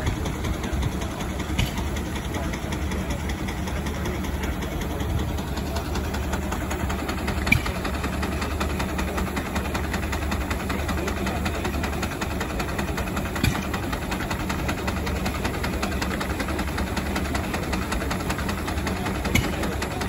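Vintage Case steam traction engine running steadily, driving a sawmill through a long flat belt, with a fast, even mechanical rhythm. A few sharp clicks stand out, about one every six seconds.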